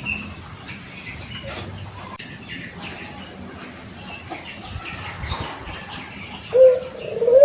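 Six-month-old puter pelung (domestic ringneck dove) cooing. Most of the stretch is quieter with faint scattered chirps, then about six and a half seconds in a loud, long coo begins, a steady tone that carries on past the end.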